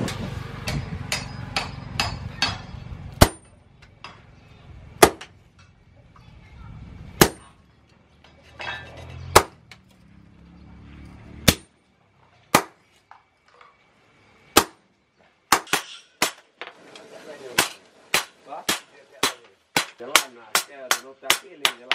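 Hand hammer striking a hot bearing-steel knife blade on a steel post anvil, each blow a sharp ringing clang. The blows come quickly at first, then singly about every two seconds, then in a fast run of about two a second near the end.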